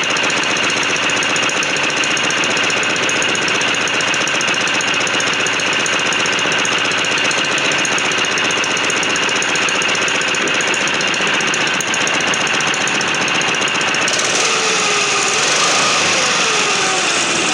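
Baja Doodlebug 97cc single-cylinder four-stroke engine running steadily at fast idle, with the clutch spinning and humming, which the owner suspects is a worn clutch bearing.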